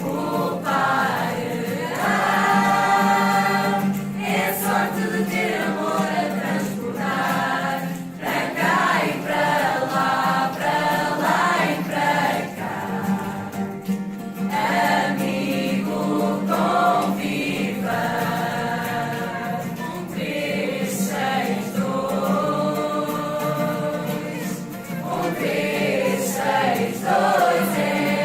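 A choir singing a religious song, with a steady low tone held underneath the voices.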